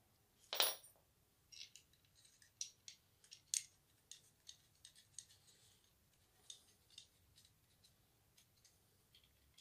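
Faint, scattered metallic clicks and light scrapes of M4 bolts and aluminium frame parts being fitted together by hand during 3D-printer assembly, with one louder knock about half a second in.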